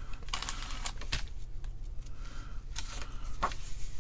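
Handling noise: light rustling and a few soft, irregular clicks as a paper manual and small plastic bags of electronic kit parts are touched and moved, over a low steady hum.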